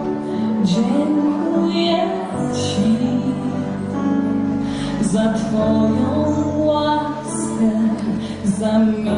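A woman singing live into a microphone, accompanied by a Nord Stage keyboard.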